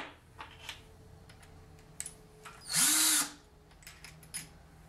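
DeWalt cordless drill/driver run in one short burst of about half a second, three seconds in, its motor whirring up, holding and winding down, after a sharp click at the start. It is backing out the screws that anchor the wire dog armature's legs to the wooden base.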